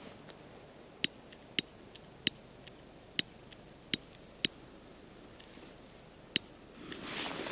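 A hand-held lighter struck repeatedly: about seven sharp, irregular clicks as it is worked to light a La Bomba firecracker's fuse. Near the end the fuse catches and starts to hiss, growing louder.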